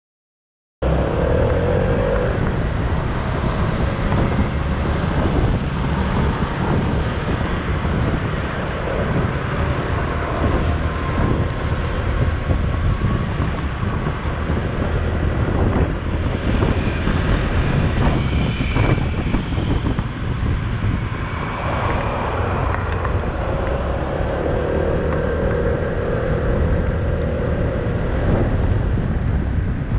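Wind buffeting the microphone while riding through city traffic, with vehicle engines and road noise underneath; it starts abruptly about a second in. A steady engine hum rises above the noise briefly near the start and again in the last third.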